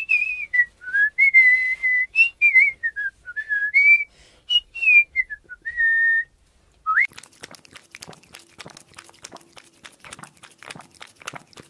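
Someone whistling a short wandering tune for about six seconds, then, from about seven seconds in, a dog lapping water from a toilet bowl: rapid, irregular wet clicks.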